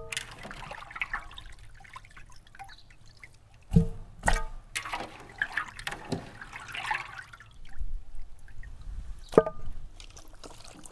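Water dripping and trickling, broken by sharp knocks that ring briefly, twice close together about four seconds in and once more near the end.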